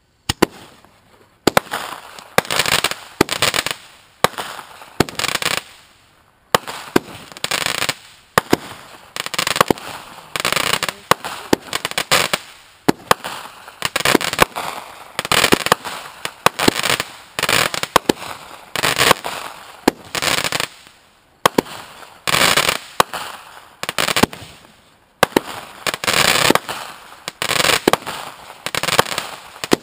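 Consumer multi-shot fireworks cake firing, with sharp bangs about once a second, each followed by a fading crackle.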